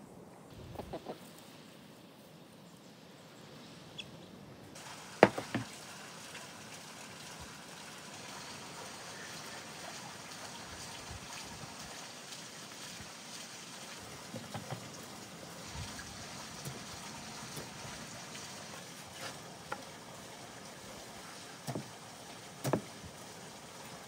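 Faint steady outdoor hiss with a few sharp wooden knocks and clicks as hollow cane sticks are handled and pushed into a raw whole lamb carcass.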